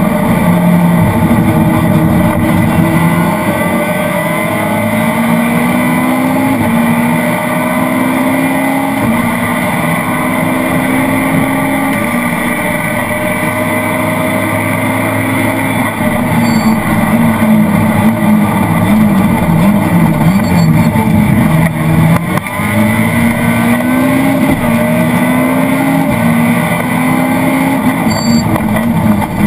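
Citroën Saxo VTS rally car's 1.6-litre four-cylinder engine at full load from inside the cabin, the revs climbing and dropping sharply at each upshift several times over. Around the middle the revs rise and fall unevenly, as through slower corners.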